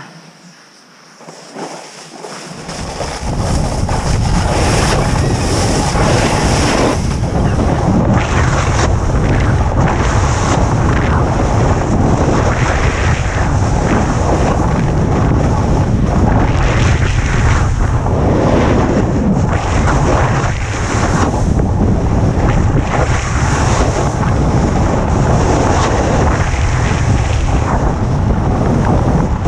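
Wind rushing over the camera's microphone as the rider speeds down the slope. It is quiet at first, then from about two seconds in it builds quickly into a loud, steady rush with a heavy low rumble. The rider's edges scrape unevenly on the packed snow underneath.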